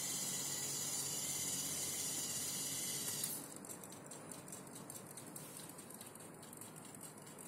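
Small hobby servomotors running as a model laundry system retracts its hanger and closes its window panels on a simulated wet-sensor signal: a steady whirring hiss that drops quieter about three seconds in, leaving a fainter, uneven whir.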